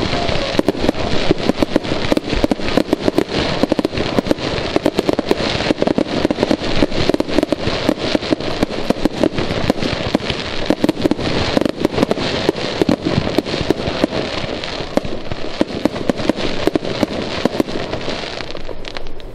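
Fireworks going off in rapid succession: a dense, unbroken string of pops and crackles.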